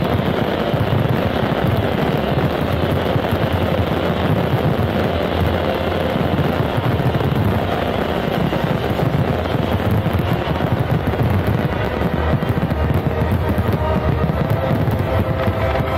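Fireworks finale: a dense barrage of aerial shells bursting and crackling, so many that they run together into one steady noise. The show's music plays underneath.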